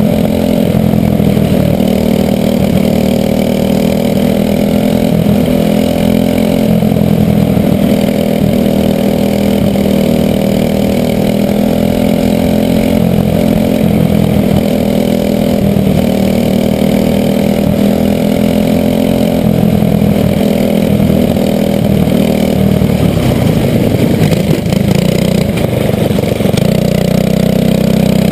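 Racing kart's small engine running hard, heard from on board the kart, its note rising and falling slightly as it laps. Late on the note wavers and dips as the kart slows, then settles to a steadier note.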